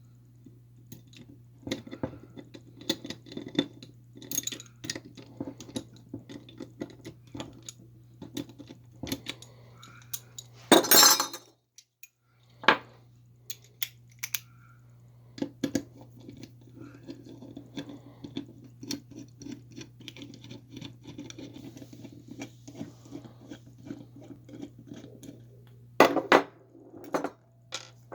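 Small metal carburetor parts and hand tools clinking and tapping during a carburetor rebuild, with irregular light clicks throughout and a louder clatter about eleven seconds in, over a steady low hum.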